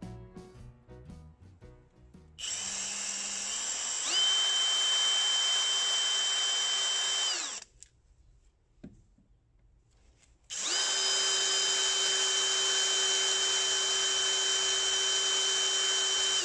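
Small bench milling machine motor running an end mill that cuts a slot into a mini lathe's painted metal headstock cover. The steady high whine starts a couple of seconds in, speeds up a second or so later, then stops. After a pause with a small click it starts again and runs on.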